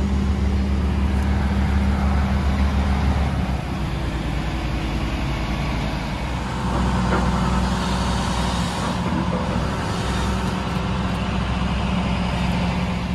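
Hyundai excavator's diesel engine running at a steady idle with a low hum. Its note shifts about three and a half seconds in and picks up a little about seven seconds in, as the machine takes some load.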